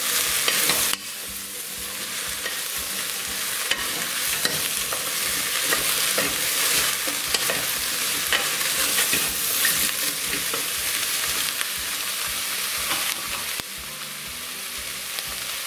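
Diced celeriac and yellow pepper sizzling in olive oil in a stainless steel pan while being stirred with a wooden spoon, with small scrapes and knocks of the spoon and vegetables against the pan. The sizzle drops a little in level about a second in.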